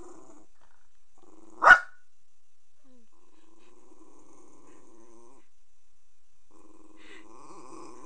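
Jack Russell terrier growling low and steadily, with one sharp bark about a second and a half in, then growling on: a warning at someone outside.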